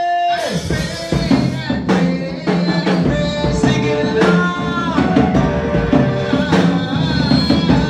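Gospel worship music with a drum kit keeping a steady beat, sustained instrument or vocal lines over it.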